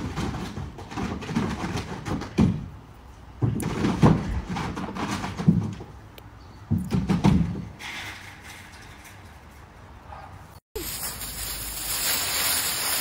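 Irregular low thuds and rumbles in gusts for the first several seconds. Then, after a sudden change, a steady dry rustling and crunching of fallen leaves as a dog roots and digs through a leaf pile.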